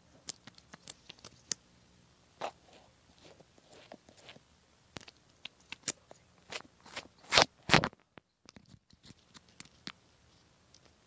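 White slime strewn with sprinkles, handled and pressed close to a microphone: scattered crisp clicks and crackles, with two louder crunches about seven and a half seconds in and a brief gap just after.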